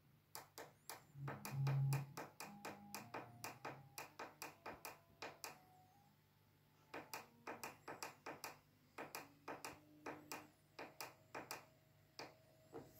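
Small geared stepper motor turning a turntable, clicking step by step about four times a second, each click followed by a short ringing ping. There are two runs of clicks with a pause between them, and a brief low hum about one and a half seconds in.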